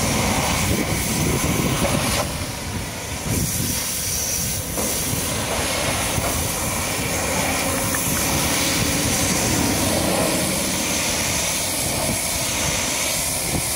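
High-pressure washer jet spraying water against a truck: a loud, steady hiss that eases briefly about two seconds in.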